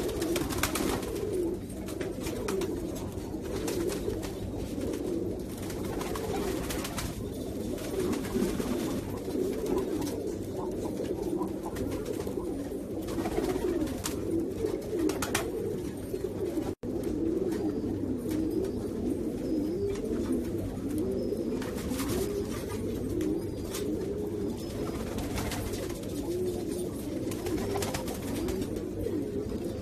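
Many domestic pigeons cooing at once in a loft, a steady overlapping warble of low coos, broken by a brief gap a little past halfway.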